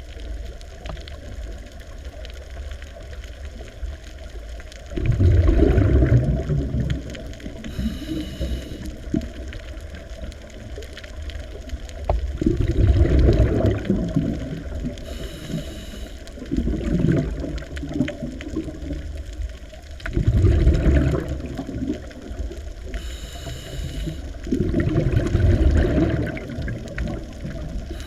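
Sea water sloshing and surging in swells that build and fade every few seconds.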